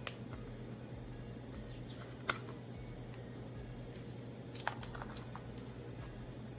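Scattered light clicks and taps of hands handling material: the sharpest about two seconds in, and a quick cluster of them about five seconds in. A steady low hum runs underneath.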